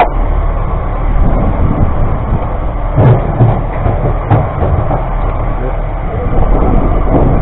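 Steady low rumble of a boat at sea, its motor mixed with wind buffeting the microphone, with a few knocks about three to four and a half seconds in.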